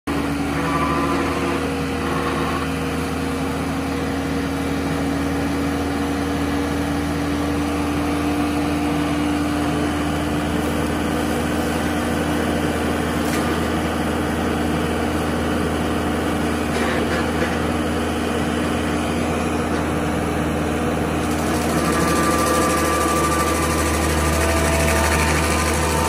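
Engine of the heavy equipment working a Stumpster tree-removal attachment, running steadily, picking up a little and getting louder near the end.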